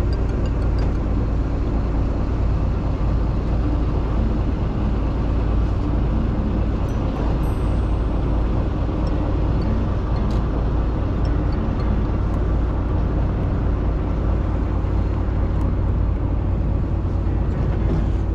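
Fishing boat's engine running steadily, a constant low rumble with faint steady hum tones above it.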